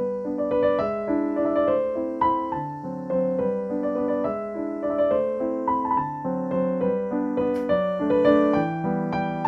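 Background piano music: a flowing melody of single notes over lower accompanying notes.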